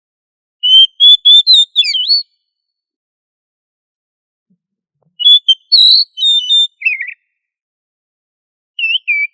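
Oriental magpie-robin (kacer) singing: three phrases of loud, clear whistled notes that slide up and down, separated by a few seconds of silence.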